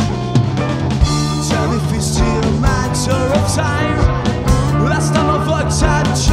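Rock band playing live: electric bass, electric guitars and drum kit, with a male lead vocal coming in about a second and a half in.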